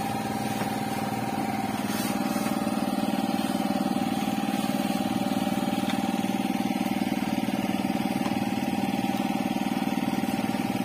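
Small engine running steadily: a low drone with a steady higher whine above it, getting a little louder about two seconds in.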